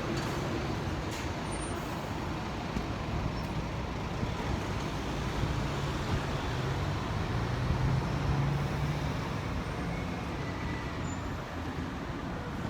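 Steady city street traffic noise, with the low drone of a heavier vehicle's engine growing louder and fading away between about five and nine seconds in.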